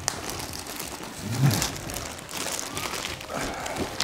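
Plastic bag wrapping rustling and crinkling as a gaming-chair backrest is lifted out of a cardboard box, with one louder low bump about a second and a half in.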